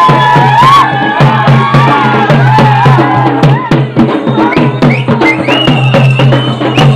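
Traditional barrel drum (dolu) beaten in a quick, steady beat, with high gliding tones sounding over the drumming.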